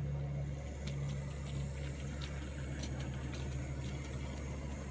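Model railway shunter locomotive running with a string of tank wagons: a steady electric motor hum with light, irregular clicks of the wheels over the track.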